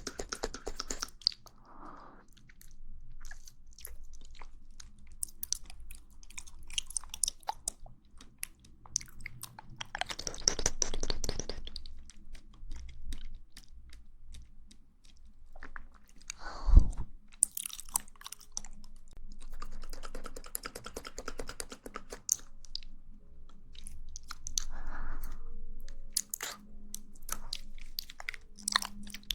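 Close-miked mouth sounds of someone eating jelly: wet chewing, clicks and smacks, with a few longer squelching stretches. A single low thump about 17 seconds in is the loudest sound.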